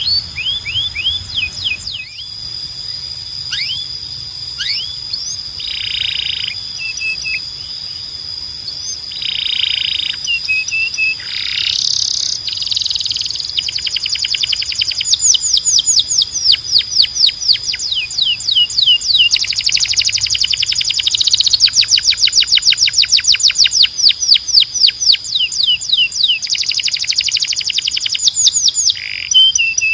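Domestic canary singing: a continuous song of rolling trills, fast runs of rapidly repeated notes changing from phrase to phrase, growing louder about halfway through.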